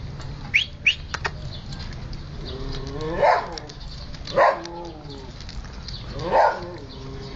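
Three short, loud animal calls a second or two apart, each rich in overtones, after two quick high chirps near the start.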